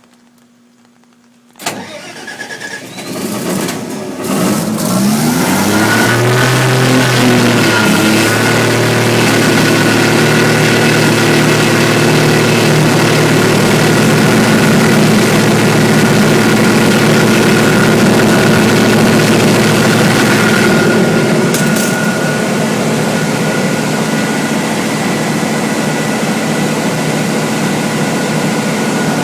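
Generac standby generator's engine starting with a sudden burst, rising in pitch as it comes up to speed over several seconds, then running steadily. Its level drops slightly about three-quarters of the way through.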